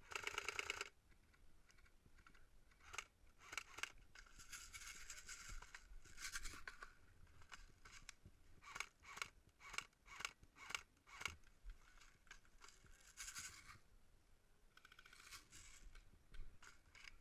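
Faint airsoft gunfire: short buzzing bursts of automatic fire and scattered sharp single shots, with a louder burst in the first second.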